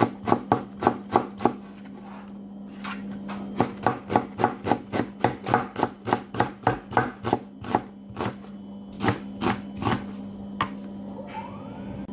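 Kitchen knife slicing an onion on a cutting board: a quick, even run of sharp chopping strikes, about four a second, with a short pause about two seconds in and fewer, more spaced strikes near the end. A steady low hum runs underneath.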